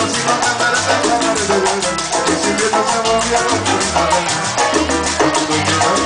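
Live salsa band playing: a deep bass line under quick, even percussion strokes, with melodic lines over the top.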